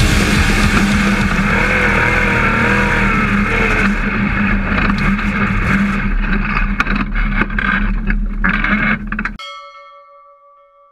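Dirt modified race car's V8 engine running hard, heard from inside the cockpit, with rattling and clattering over it. About nine seconds in the car sound cuts off abruptly, leaving a steady ringing tone that fades away.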